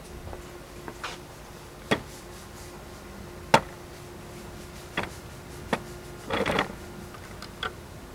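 Camera and tripod handling noise: a few scattered light knocks and clicks, the sharpest about three and a half seconds in, with a short rustle a little after six seconds, over a faint steady hum.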